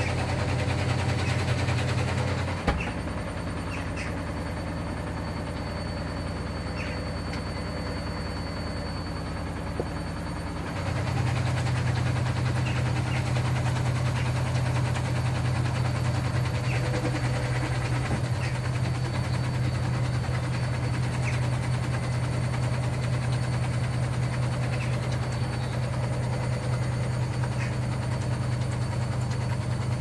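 Hoover Dynamic Next front-loading washing machine running a wash, its drum tumbling the load with a steady low motor hum. There is a sharp click about three seconds in, and the motor note shifts and gets louder about eleven seconds in.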